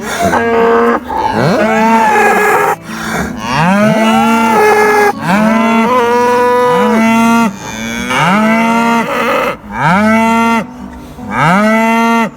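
Several cattle mooing loudly over and over, the calls coming every second or two and sometimes overlapping, each one rising in pitch and then held.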